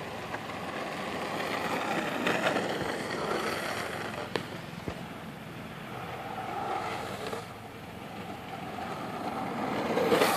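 Skateboard wheels rolling on rough asphalt: a steady rumble that swells and eases a few times, with one sharp click about four seconds in.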